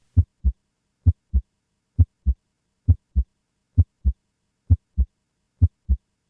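Normal human heart sounds, S1 and S2, in seven evenly paced lub-dub pairs. The two thumps in each pair come about a third of a second apart, at a little over one beat a second.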